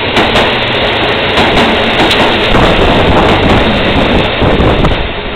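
KiHa 11 diesel railcar arriving at the platform and rolling past close by. Its wheels click repeatedly over the rail joints above a loud, steady running noise.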